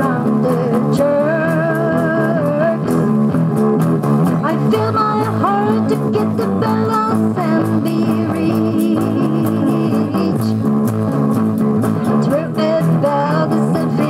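Instrumental passage of a rock song: electric guitar and a bass line over drums, with a wavering lead melody line on top.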